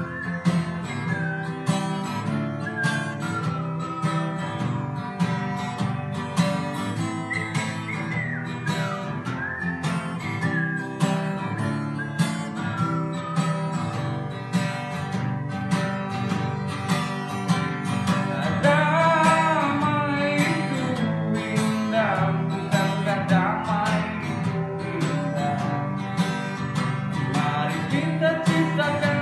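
Acoustic guitar strummed steadily, accompanying a man singing a song in Indonesian through a face mask; the voice comes and goes and is strongest in the second half.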